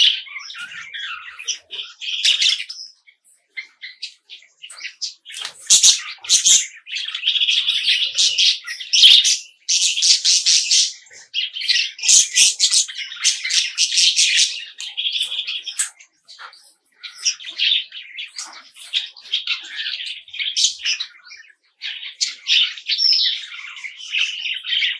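Small birds chirping and chattering in dense, overlapping calls, with busier stretches and brief pauses.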